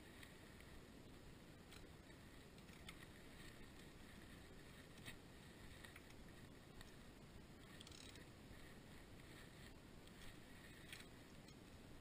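Near silence: faint room tone with a few soft, scattered clicks, likely from hand tools at the battery terminals.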